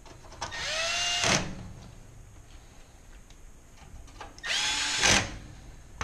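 Cordless Milwaukee driver twice spinning a screw in, each run about a second long, the motor whine rising and then holding before a brief louder burst at the end. The screws are fastening a range's lower skirt back in place.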